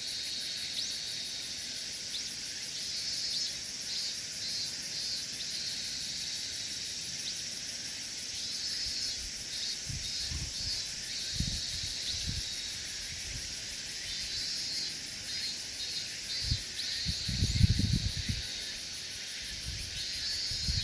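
Insects chirring: a steady high buzz under trills that come and go in pulsed groups. A few low thumps come in the second half.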